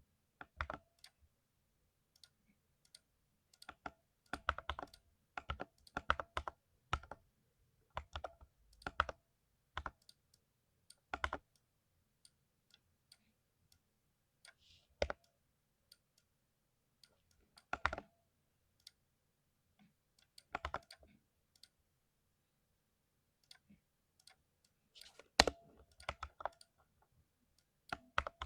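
Computer keyboard being typed on in irregular bursts of clacking keystrokes, broken by pauses of a few seconds; the loudest keystrokes come near the end.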